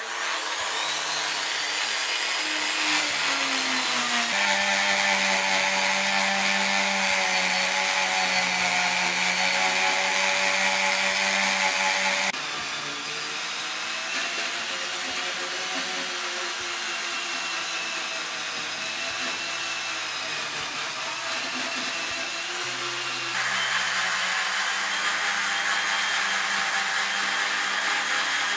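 Handheld electric rotary tool with a small abrasive bit running against the metal vase, a steady high whine. It rises in pitch as it spins up at the start, and shifts suddenly in pitch and loudness about twelve and twenty-three seconds in.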